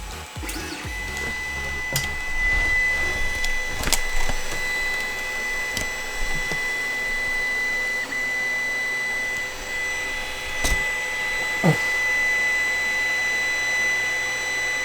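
3D printer running at the start of a print, laying down its test line: a steady high whine that sets in about a second in and holds, over a whirring hum, with a few sharp clicks.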